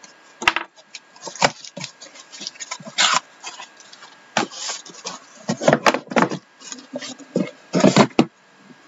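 Cardboard shipping case being opened by hand: the flaps are pulled and folded back with rustling scrapes and knocks. Then the outer box is dragged up off the stacked boxes inside, with the loudest scraping between about five and eight seconds in.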